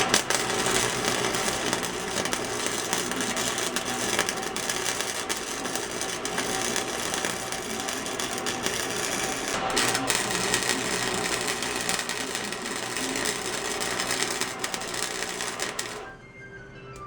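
Flux-core wire-feed welder arc crackling and sputtering in a steady run, with a short break about ten seconds in. It stops about a second before the end.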